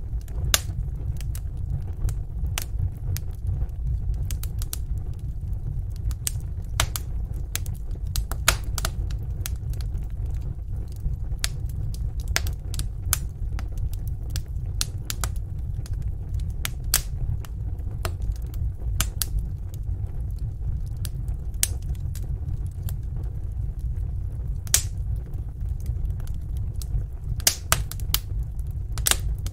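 Wood fire burning in a fireplace: sharp, irregular crackles and pops over a steady low rumble.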